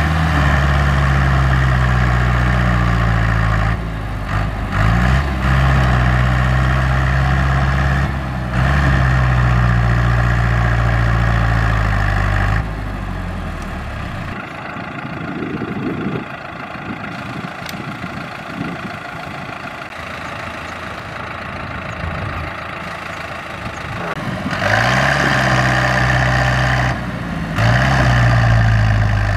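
Changfa CFD504 tractor's diesel engine running hard under load while bogged in mud, its note dipping briefly twice then picking up again. About halfway through it drops to a quieter, rougher sound with no clear engine note. Near the end it revs up loudly twice.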